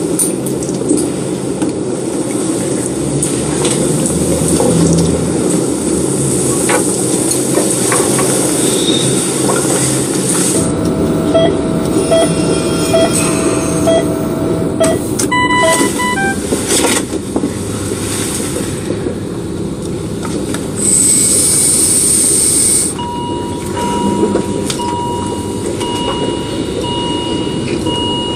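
Hospital life-support equipment: a steady rushing ventilator-like noise with scattered electronic beeps, and from about two-thirds of the way in, a patient monitor beeping in a regular pattern about once a second.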